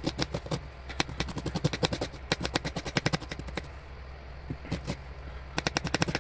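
Kitchen knife finely chopping red onions on a plastic chopping board: quick runs of sharp taps, several a second, with a short break past the middle before the chopping resumes.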